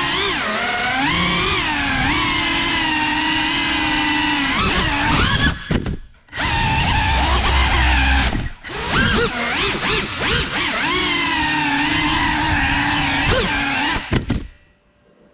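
The four brushless motors and ducted propellers of a GEPRC CineLog 35 cinewhoop drone whine loudly from the onboard camera, their pitch rising and falling with the throttle. The whine cuts out briefly about six seconds in and again near nine seconds, then stops abruptly near the end.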